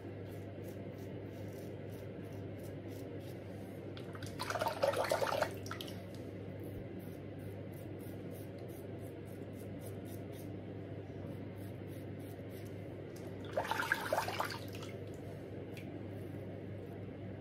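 Two crackling scrapes of a double-edge safety razor (a Start razor with a Voskhod blade) cutting through lathered stubble, about a second each: one about four and a half seconds in, the other about ten seconds later. A faint steady hum runs underneath.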